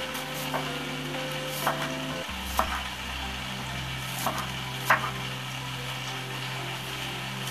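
Kitchen knife cutting green tomato on a wooden cutting board: about five separate knocks of the blade on the board, irregularly spaced, over a steady low hum.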